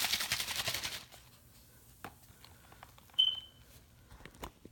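A capped plastic bottle of vinegar and baking soda, hard with gas pressure from the reaction, shaken vigorously for about a second: rapid sloshing and rattling of the liquid inside. About three seconds in, one sharp tap with a brief high ring as the rigid bottle is set down on concrete.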